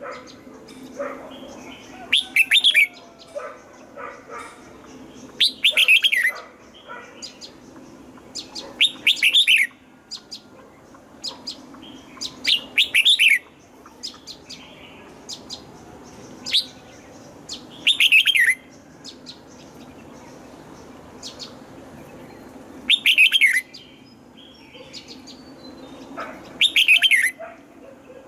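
Red-whiskered bulbul singing: seven loud, short phrases spaced a few seconds apart, each made of quick notes that slide down in pitch, with softer chirps in between.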